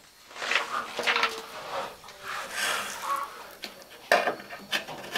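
Irregular scraping and rubbing by hand against a window frame, with a couple of light knocks a little past four seconds in.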